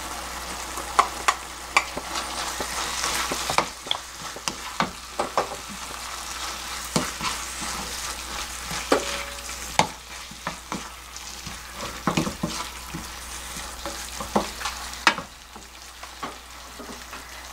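Wooden spatula stirring and scraping eggplant, minced pork and chopped green onion in a frying pan, with many short clicks and scrapes over a steady sizzle of the frying sauce. The sizzle drops a little in level twice.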